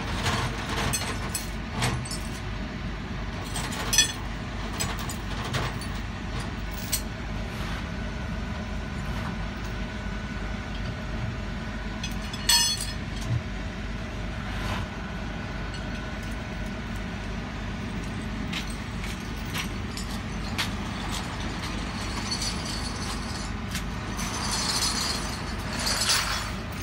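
Flatbed tow truck's engine running steadily at idle, with scattered sharp metallic clinks and clanks of tie-down chains being worked, one ringing louder about halfway through.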